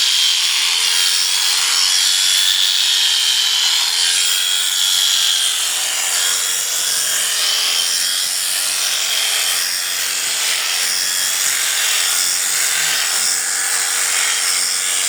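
Electric sheep shears running steadily through the fleece: a constant motor hum with a slight waver under a hissing cut.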